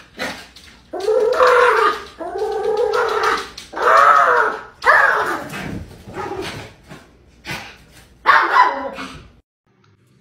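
Small white dog giving a series of drawn-out whining barks that bend up and down in pitch, about five in all, with paws clicking and scratching against a glass door between them.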